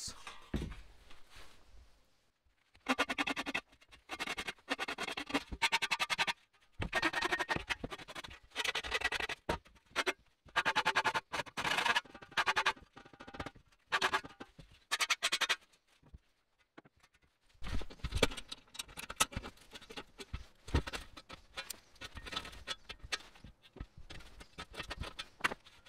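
A file rasping along the cut edge of a sheet-metal radiator fan shroud in short, irregular strokes with pauses between them. The thin metal rings faintly under the file.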